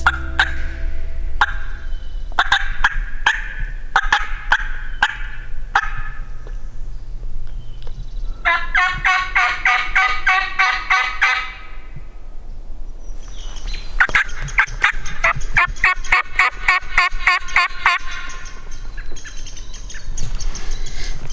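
Turkey calling: a run of sharp, loud yelps over the first several seconds. Then come two long, rapid rattling gobbles, each lasting three to four seconds, with a short gap between them.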